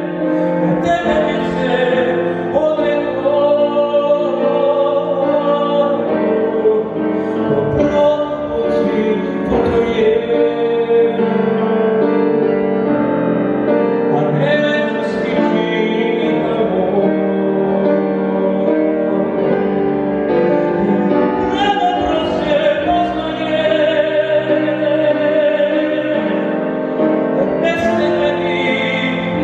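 A man singing a song in Serbian into a handheld microphone, with piano accompaniment.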